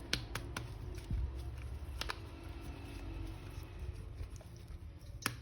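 Scattered light clicks and taps of a plastic action figure and its packaging being handled, over a low steady hum.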